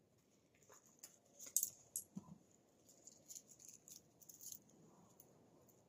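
Faint, scattered small clicks and light rattling from a wristwatch being handled and fitted on the wrist, the loudest few about one and a half to two seconds in.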